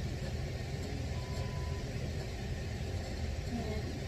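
Steady low background rumble, with a faint brief tone a little over a second in.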